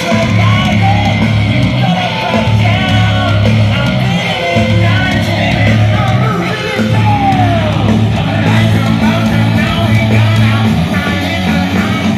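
Rock band playing live through a large outdoor concert PA: steady bass and guitar under a singer's voice, with a falling glide about seven seconds in.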